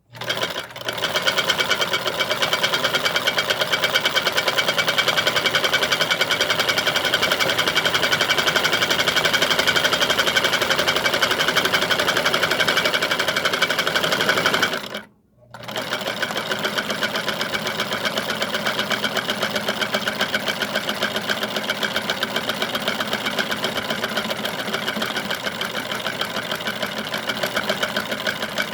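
Kenmore 1750 sewing machine running steadily with a Kenmore low shank buttonholer attachment, stitching a buttonhole with a fast, even needle rhythm. It stops for a moment about halfway, then starts again slightly quieter.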